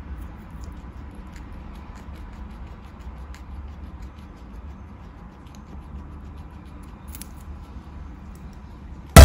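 Guinea pig biting and chewing a carrot: quiet scattered crunches and small clicks of its teeth, over a low steady hum. Loud music cuts in right at the end.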